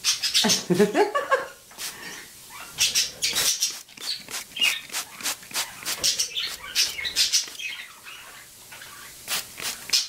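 A wet parrot flapping its wings and shaking out its soaked feathers, a run of quick rustling flutters in several spells, after a brief voice-like call in the first second.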